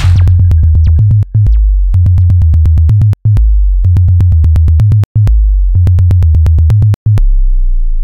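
Electronic music: a deep synthesizer bassline stepping between very low notes under a steady run of sharp clicks. It comes in phrases about two seconds long with short breaks between them. A dense, noisy section drops out just as it begins, and near the end a last low note is held and starts to fade.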